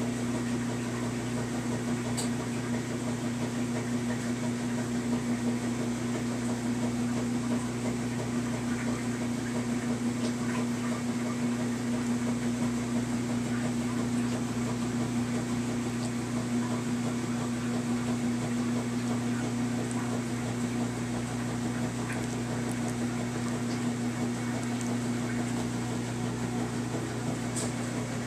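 A steady low electrical hum from a running motor or appliance, unchanging throughout, with a few faint clicks scattered over it.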